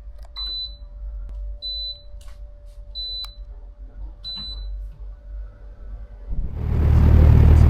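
Four short, high electronic beeps about a second and a half apart, then, a second or so before the end, a loud steady rushing noise with a low hum comes in.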